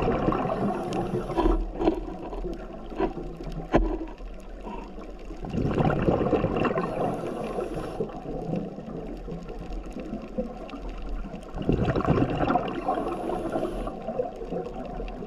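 Scuba regulator breathing underwater: a gurgling rush of exhaled bubbles about every six seconds, three times, with a few sharp clicks in between.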